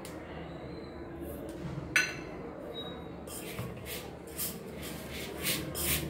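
A hand rubbing a dry flour, semolina and ghee mix in a metal bowl: a single metal clink about two seconds in, then rhythmic scratchy rubbing strokes from a little past halfway.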